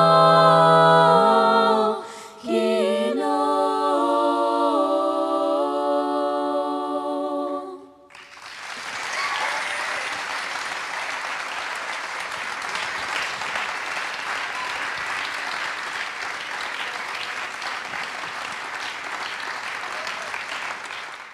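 Six-woman a cappella jazz vocal group singing the closing phrases in close harmony, holding long chords that stop together about eight seconds in. An audience then applauds steadily.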